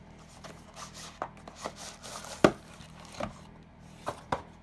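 A product box being opened and its paper and packaging handled: scattered taps, rubs and rustles, with a sharp knock about halfway through and two quick knocks near the end.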